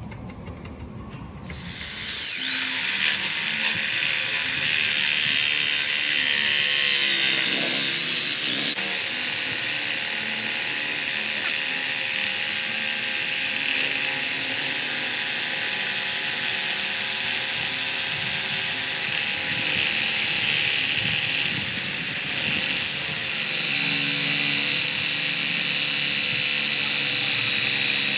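A power tool starts about two seconds in and runs without a break, a steady hissing whine.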